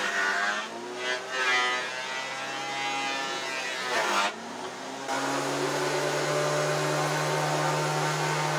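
Portable electric thickness planer running and cutting boards. Near the start and again about four seconds in, its motor pitch drops under load with a burst of cutting noise as a board goes through, then it settles back to a steady whine.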